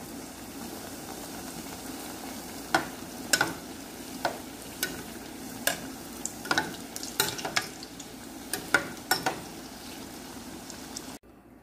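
Dough pieces deep-frying in oil in an aluminium pot, sizzling steadily. From about three seconds in, a metal slotted spoon turns them and clinks sharply against the pot over a dozen times. The sizzle cuts off suddenly near the end.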